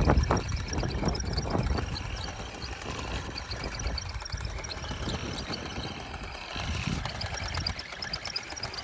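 Kyosho Blizzard radio-controlled snow cat's small electric motor and tracks running over icy snow, an uneven low rumble with a few sharp knocks in the first couple of seconds and light rapid ticking throughout.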